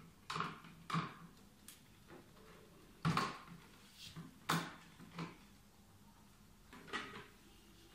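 Parts of a one-row hand-push vegetable seeder being handled and fitted together by hand: a string of about eight irregular clicks and knocks, the loudest about three seconds in and about halfway through.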